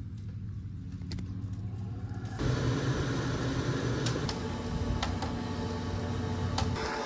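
Small electric blower fitted to the woodstove's air inlet switches on about two and a half seconds in and then runs steadily, a motor hum under a rush of forced air. Before it starts there is only a lower steady hum.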